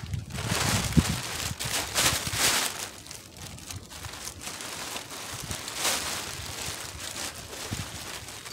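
Blue polyethylene tarp rustling and crinkling as it is lifted and shaken out, with wind gusting on the microphone; the crackly hiss surges and fades several times.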